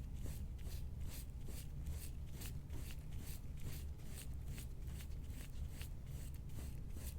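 Repeated rubbing strokes over skin, an even run of short swishes at about two a second.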